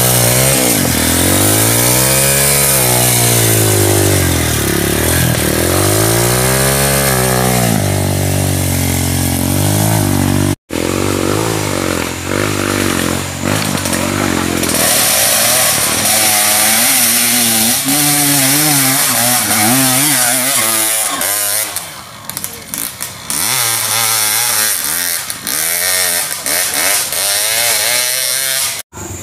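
Single-cylinder trail bike engines revving. A mud-stuck Honda dirt bike is blipped up and down over and over, about every two seconds. After a sudden break about ten seconds in, other dirt bikes rev in short, wavering bursts.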